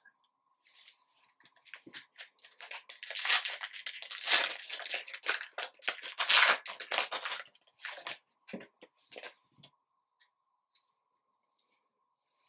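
Foil trading-card pack being torn open and crinkled, loudest from about three to seven seconds in, then a few soft clicks as the cards are handled.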